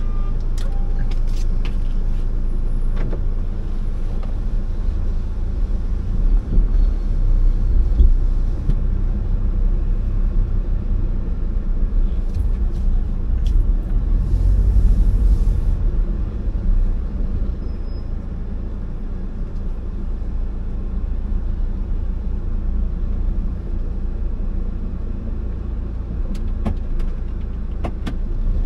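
Steady low rumble of a car heard from inside the cabin, with a few light ticks and a brief hiss about halfway through.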